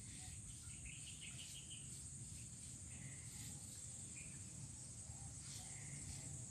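Steady high-pitched insect drone, with short chirps now and then over a low rumble.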